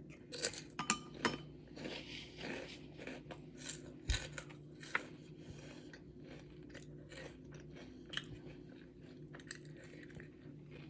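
Close-miked eating sounds: a person chewing food, with irregular wet clicks and snaps of the mouth.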